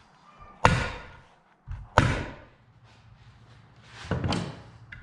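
Three sharp strikes about a second and a half apart, each trailing off quickly, the third softer: a tacker driving fasteners as material is tacked in place.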